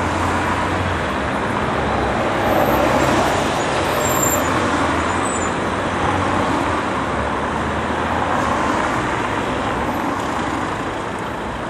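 Steady road traffic noise from cars and buses passing on a wide city street, swelling slightly a few seconds in.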